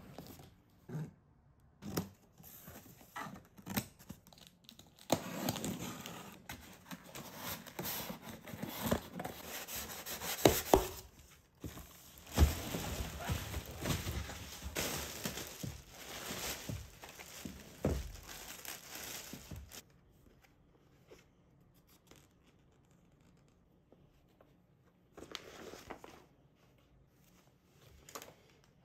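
Unboxing: scissors cutting packing tape and plastic straps on a cardboard box, tape tearing, and a clear plastic bag crinkling as the packed stepper is pulled out, with scattered knocks of cardboard. The handling stops about two-thirds of the way through, and there is one brief rustle near the end.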